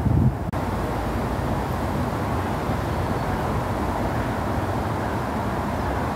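Steady low outdoor background rumble with no distinct events, and a brief louder bump right at the start.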